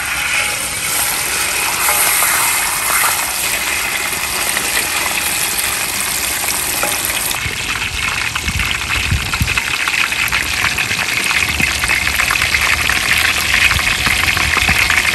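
Hot oil in a steel wok sizzling hard around a whole spice-marinated fish just lowered in to fry. Steady loud sizzle with scattered crackles and pops that grow thicker in the second half.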